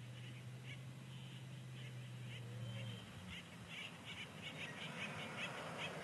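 Young chicks peeping: short, high cheeps, scattered at first and coming thick and fast in the second half. A low steady hum sits under them and stops about halfway through.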